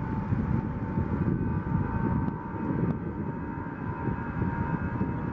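Airbus A319 jet engines running, a steady multi-tone whine over a low rumble, as the airliner rolls along the runway.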